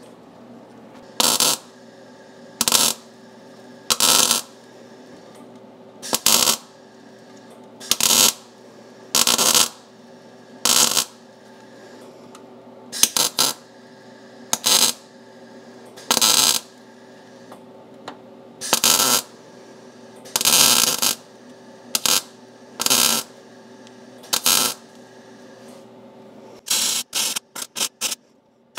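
MIG welder laying short tack and plug welds on a steel plate in a truck cab floor: the arc crackles in bursts of under a second, about every one and a half seconds, with a faint steady hum between them. Near the end it changes to a quick run of very short blips.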